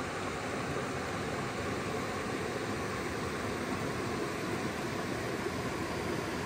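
Steady rushing of river water flowing over rocks, an even hiss that does not change.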